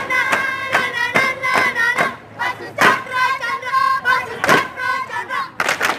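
A group of young voices chanting or singing together on a sustained pitch, punctuated by a series of sharp percussive hits, several in quick succession in the first two seconds and a few more later.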